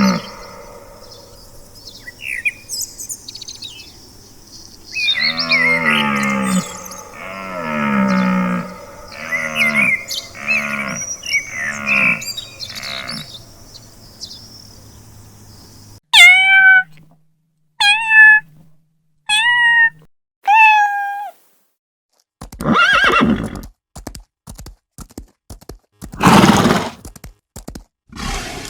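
A succession of different animal calls. First comes a run of pitched, falling calls about one a second; then four sharp high calls, each dropping in pitch; then several harsh, noisy calls near the end.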